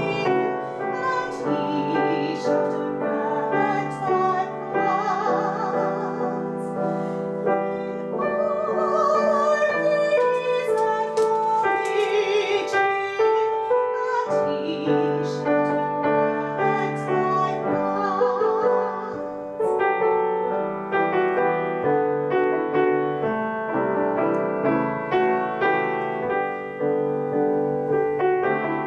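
A female classical voice singing with wide vibrato over grand piano accompaniment. About two-thirds of the way through the voice stops and the piano carries on alone.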